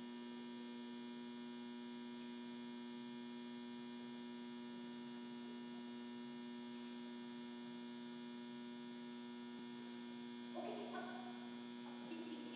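Steady electrical mains hum, several even tones held without change, with a single click about two seconds in. Near the end, a few short high squeaks and whines from an excited agility dog waiting to run.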